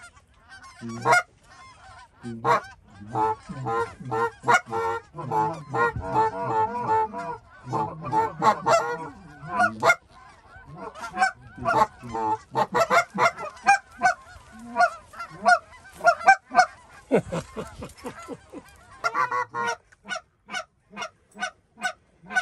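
A flock of Canada geese honking, many short overlapping calls in a busy chorus that thins out near the end, as the birds circle low and come in to land among decoys.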